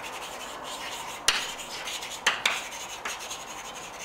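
Chalk writing on a blackboard: a steady scratchy rasp of chalk strokes, with a sharp tap of the chalk about a second in and two more a little past two seconds.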